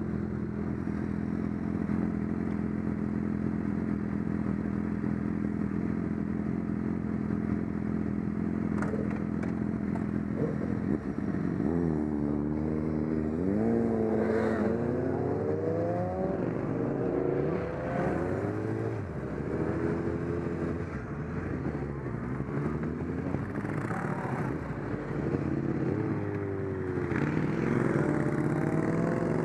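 Motorcycle engines idling steadily for about eleven seconds, then pulling away and accelerating, with repeated rising pitch sweeps as the bikes rev up through the gears.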